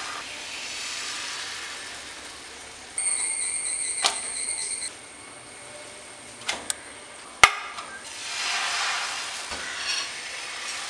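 Thin crepe batter sizzling on a hot dosa griddle as it is ladled on and spread, once at the start and again near the end. In between, a high steady whistle-like tone lasts about two seconds, and there are several sharp clicks, the loudest about seven seconds in.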